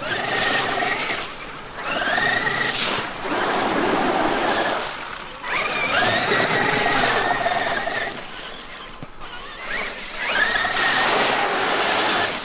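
Brushless electric motor of a Traxxas X-Maxx RC monster truck whining as it accelerates in about five repeated bursts, the pitch rising quickly and then holding high, with a rushing noise underneath.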